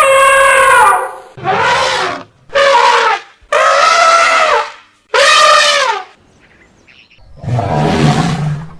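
Elephant trumpeting: a run of loud, pitched calls about a second each with short gaps between them, several dropping in pitch as they end, followed near the end by a lower, rougher call.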